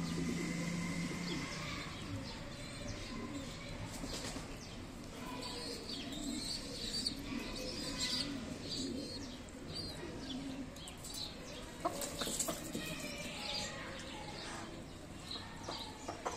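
Backyard chickens and other birds calling: many short high chirps and clucks scattered throughout, with a low steady note in the first second or so.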